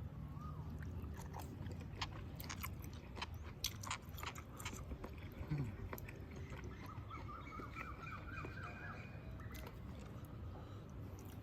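A person chewing and biting into a mouthful of cooked squid close to the microphone, with wet mouth clicks and smacks. A short run of quick high chirps sounds in the background from about seven seconds in.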